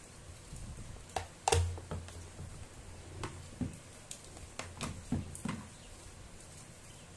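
Irregular light clicks and knocks of small parts and tools being handled, the loudest about one and a half seconds in, over a faint low hum.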